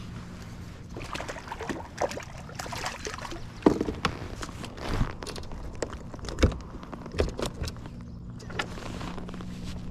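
Irregular knocks, clicks and rustles of fishing gear being handled aboard a kayak, with sharper knocks about four seconds and six and a half seconds in, over a low steady hum.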